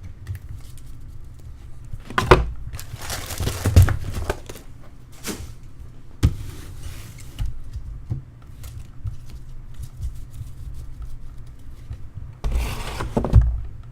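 Trading cards and pack wrappers being handled on a table: bursts of rustling and crinkling about two seconds in and again near the end, with a few knocks in between.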